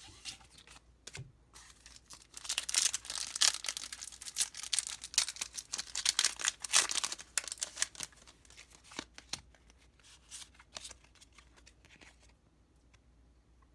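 A foil Pokémon booster pack being torn open and crinkled for several seconds, followed by lighter scattered clicks and rustles as the cards are handled.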